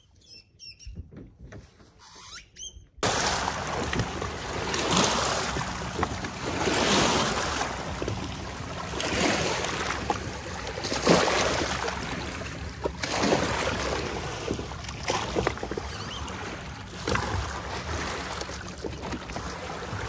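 Faint bird chirps for about three seconds, then an abrupt change to loud splashing water noise from canoe paddling, surging with each stroke about every two seconds.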